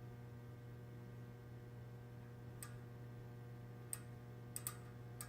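About five light, sharp clicks at uneven intervals in the second half, from hands working on a bicycle's rear hub while oil is fed into it. A steady low electrical hum sits underneath.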